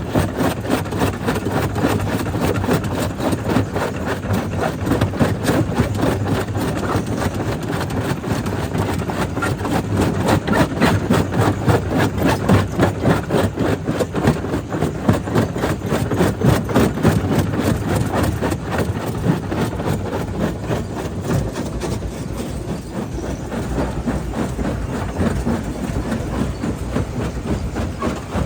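Jaw crusher running and crushing stone: a rapid, even clatter of knocks from the jaw and breaking rock over the steady drone of the machine.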